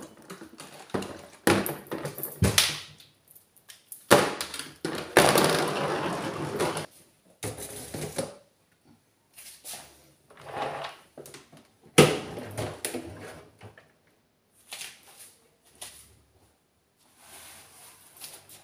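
Plastic cleaning-product bottles and plastic storage bins being handled and set down: irregular knocks, clunks and scrapes, with a longer scraping stretch a few seconds in.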